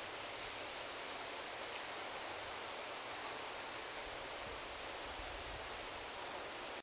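Steady, even hiss with a faint, thin high-pitched whine held constant above it; nothing starts or stops.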